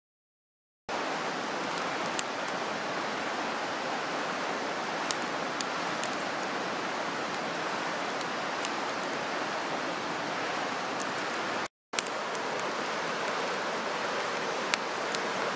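Small campfire of split sticks crackling, with scattered sharp pops over a steady rushing hiss. The sound cuts out briefly twice, just after the start and about three-quarters of the way through.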